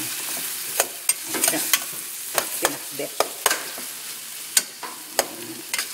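A metal spoon stirring chunks of fried pork belly and tomatoes in a stainless steel pot, clinking and scraping against the pot in irregular sharp clicks, over a faint sizzle from the pan.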